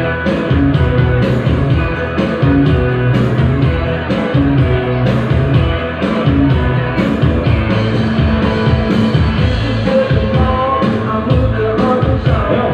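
Dance music played loud through a disco sound system, with heavy bass and a steady beat.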